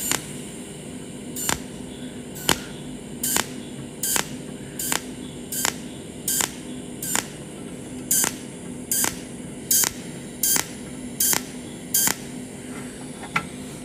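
Cold welding machine's tungsten arc firing short pulsed zaps at an even pace, about one every three quarters of a second, as it tacks overlapping spot welds along the inner corner of a thin 0.5 mm square tube at low pulse current. A steady low hum runs underneath.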